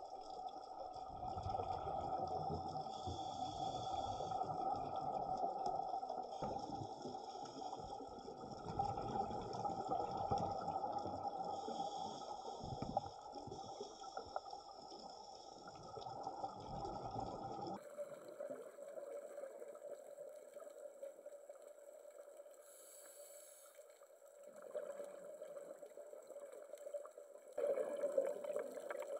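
Scuba divers' exhaled air bubbling and gurgling underwater, heard muffled through a camera housing, in rushes a few seconds apart over a steady hiss. About two-thirds of the way through it cuts to quieter underwater hiss, with two softer bubble rushes near the end.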